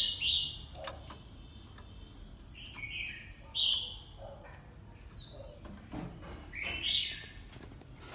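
Oriental magpie-robin singing: a handful of short, clear chirped and whistled phrases a second or two apart, one of them a quick falling note, with a few faint clicks in between.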